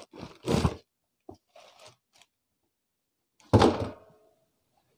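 A short rustle of cardboard and plastic near the start. About three and a half seconds in comes a loud thump with a brief ring as the 10-inch double-magnet subwoofer, still in its plastic bag, is set down on a wooden table.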